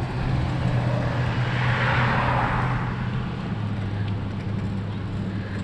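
A road vehicle passing close by, its tyre and engine noise swelling and fading about two seconds in, over a steady low hum that drops slightly in pitch a little after three seconds.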